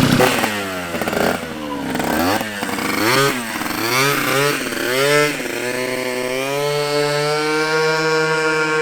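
150cc GY6 scooter engine with an aftermarket PG exhaust, revved in a series of quick throttle blips, then held in a long, steady pull that slowly rises in pitch.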